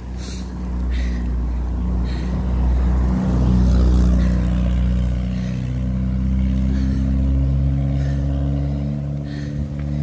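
Engine running steadily, its pitch drifting slightly, over a low wind rumble on the microphone from riding.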